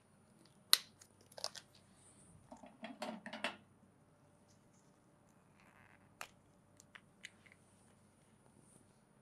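Faint handling noise of markers: a few sharp clicks, the loudest just under a second in, and a short clatter about three seconds in, as marker caps are pulled off, snapped on and the pens shuffled in the hands.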